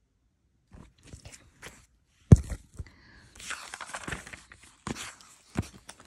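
Paper textbook being handled and its pages flipped: a run of clicks and knocks with a rustle of paper in the middle, the loudest a sharp knock about two seconds in.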